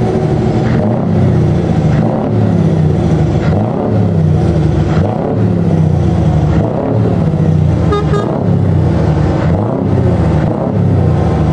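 Scania 164L 480's V8 diesel revved in repeated blips about every second and a half as the truck pulls away slowly. A short horn toot comes about eight seconds in.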